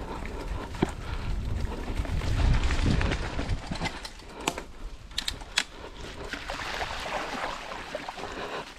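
Mountain bike rolling down a dirt trail: wind rushing over the microphone with tyre noise, heaviest in the first three seconds, then a few sharp clicks and rattles from the bike about halfway through.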